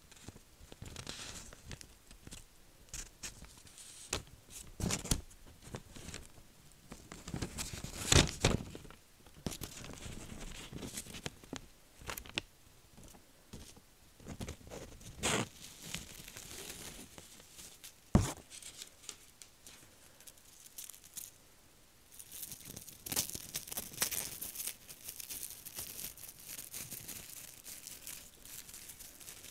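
Gold leaf booklet handled close to the microphone: tissue interleaves and thin gold sheets rustle and tear as they are peeled, with a few sharp clicks. From about two-thirds of the way through, a crumpled gold leaf sheet crinkles densely.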